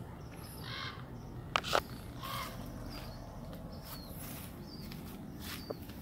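Birds chirping in short, scattered calls over a steady background of outdoor noise, with a couple of short clicks a little after a second and a half in.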